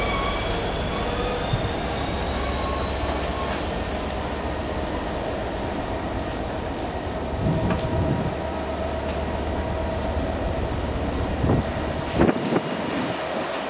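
A train moving through the station: a steady rumble with a high, steady whine, and a few knocks in the second half. The low rumble falls away near the end.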